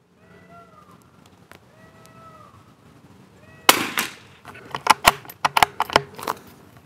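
Several short animal calls rise and fall in pitch. Then a single shot from a .22 Long Rifle CZ Brno Model 4 bolt-action rifle about four seconds in is the loudest sound, followed by a quick run of clicks as the bolt is worked to eject the case and chamber the next round.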